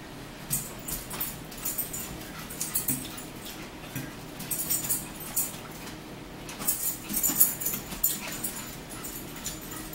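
Close-up eating sounds: chewing and mouth clicks with a fork tapping and scraping on a plate, coming in short clusters every second or two.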